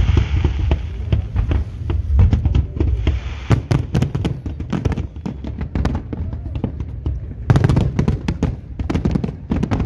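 Fireworks display: many aerial shells bursting in quick succession, a dense run of sharp bangs over a low rumble, with a thick cluster of bangs near the end.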